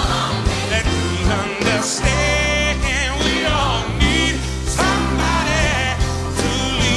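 Background music: a song with a sung vocal over a full band.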